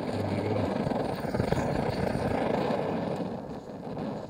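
MSR Dragonfly liquid-fuel stove burner running with a steady rushing roar, its fuel valve opened up after priming has heated the burner.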